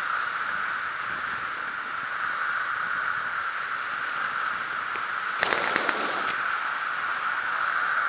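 Steady rush of air over the camera's microphone as a skydiver descends under an open parachute canopy, with a brief burst of crackling about five and a half seconds in.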